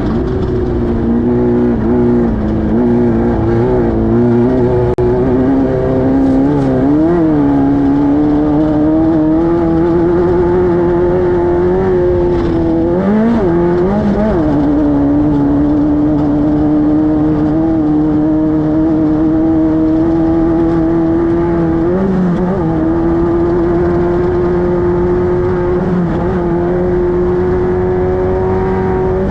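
Class 5-1600 race car's air-cooled 1600 cc VW flat-four engine running hard at high, steady revs. There are a few brief dips and recoveries in pitch, the deepest about 13 to 14 seconds in.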